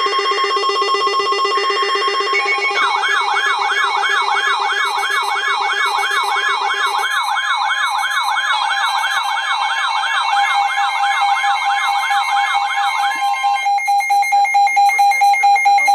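Several NOAA weather radio receivers alarming together for a test tornado warning. There are short bursts of alert data tones and a pulsing beep, along with a steady alert tone. From about three seconds in, a fast warbling siren-like alarm sweeps up about three times a second for some ten seconds, and rapid beeping takes over near the end.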